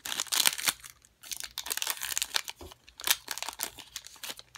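Silver foil trading-card pack wrapper crinkling and crackling in irregular bursts as it is torn open and the cards are pulled out of it.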